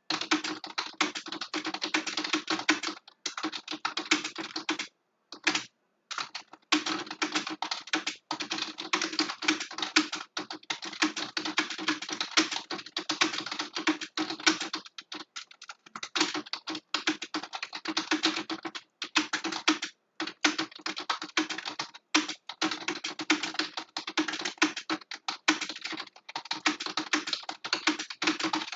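Computer keyboard being typed on fast and continuously, with rapid key clicks and a few brief pauses between bursts.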